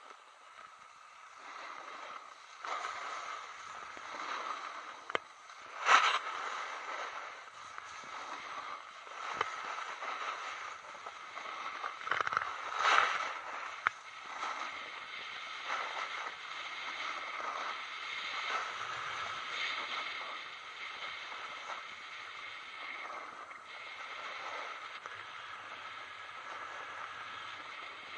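Skis sliding and scraping over packed snow on a downhill run: a hiss that swells and fades with each turn, with two louder scrapes about six and thirteen seconds in.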